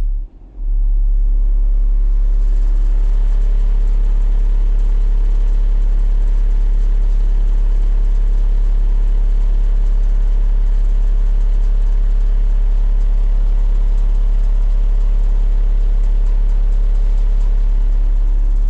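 Four 15-inch Sundown Audio Zv5 subwoofers, driven by Sundown SALT 8 amplifiers, playing a loud, steady low bass test tone while the amp gain is being turned up toward clipping. The tone drops out briefly about half a second in, where the looping test track restarts.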